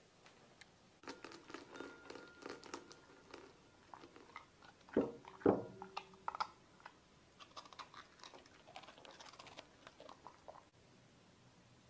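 Shiba Inu eating from a ceramic bowl: a run of crunching and chewing, with two louder knocks about five seconds in. The eating stops near the end.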